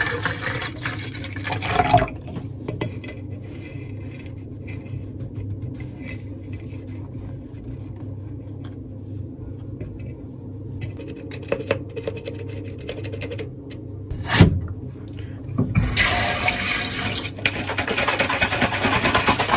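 Water poured into a plastic protein shaker bottle for about two seconds, then a quiet stretch with a low steady hum and small scraping ticks, and a sharp knock about fourteen seconds in. From about sixteen seconds the shaker is shaken hard, a dense sloshing rattle.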